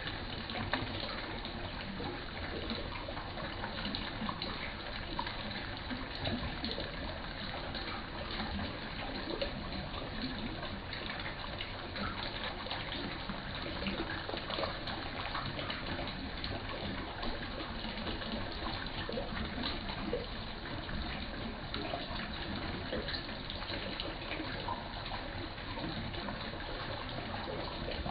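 Water pouring and splashing steadily into a fish pond, a continuous gushing with small scattered splashes.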